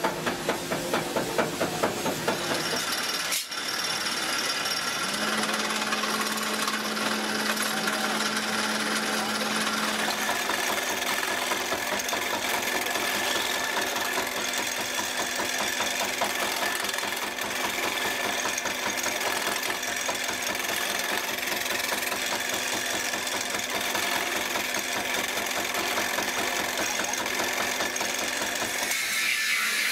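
Small bench riveting machine hammering rapidly and steadily, setting a rivet that joins a brick trowel's tang to its blade, with a faint steady motor hum.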